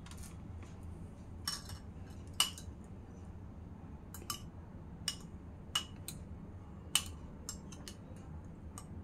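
A metal spoon clinking against a small glass bowl of beaten egg: about half a dozen sharp, separate clinks, with a few fainter taps near the end, over a low steady hum.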